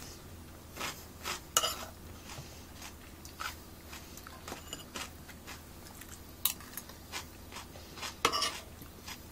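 Metal spoon clinking and scraping lightly against a ceramic plate and a plastic soft-tofu tub: a handful of separate small taps.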